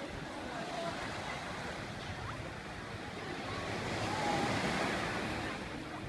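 Small waves washing onto a sand beach, a steady hiss of surf that swells louder about four seconds in, with a few faint distant voices.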